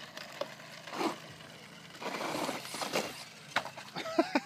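Brushless-powered RedCat Volcano RC monster truck driving over loose dirt and grit, its tyres scrabbling and throwing dirt, loudest for about a second in the middle, with a few sharp clicks and knocks near the end.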